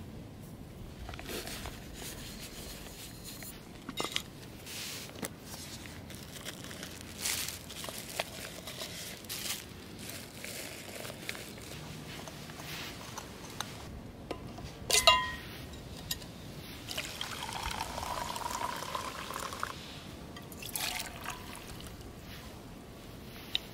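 Handling of camping cookware and a gas stove: scattered light clicks and knocks, with one sharp clack about halfway through as the loudest sound. Then liquid is poured into a metal mug for a few seconds, with a shorter second pour just after.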